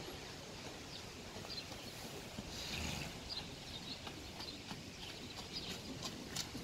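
Faint, irregular hoofbeats of a ridden Lusitano horse moving over the wet sand of an arena, over steady outdoor background noise with a few short high chirps.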